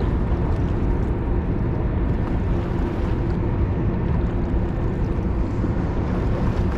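A boat's motor running steadily, a low even rumble, with wind and water noise over it.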